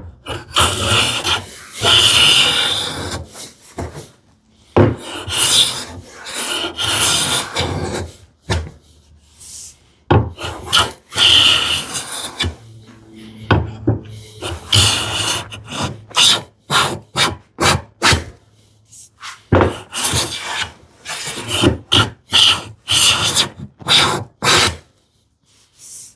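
Hand plane jointing the edge of a poplar board: a series of planing strokes. Longer strokes come in the first half and shorter, quicker ones after the middle, the cut reaching a full-width shaving.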